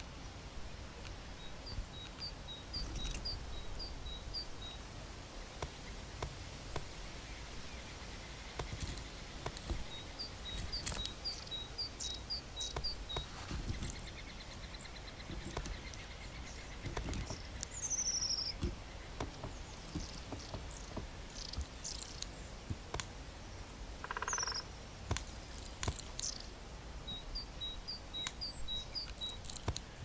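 Outdoor birdsong: a small bird repeats a high two-note phrase in three bouts, with a couple of short falling whistles and scattered sharp clicks or taps over a low background hiss.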